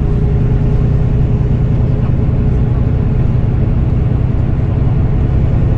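Interior noise of a Volvo B9R coach on the move: its rear-mounted six-cylinder diesel engine runs steadily under a low drone of road and tyre noise, heard from inside the passenger cabin.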